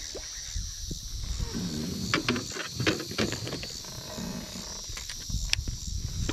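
A steady, high-pitched insect chorus with a regular pulse. A cluster of sharp clicks and knocks comes about two to three seconds in, and a few more near the end, over a low rumble.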